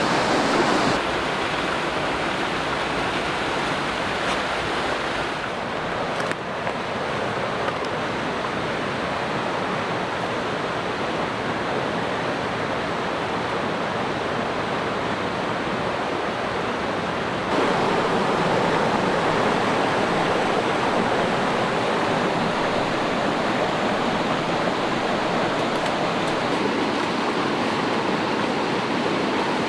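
Mountain creek water rushing and tumbling over rocks in cascades, a steady wash of noise that grows a little louder about two-thirds of the way through.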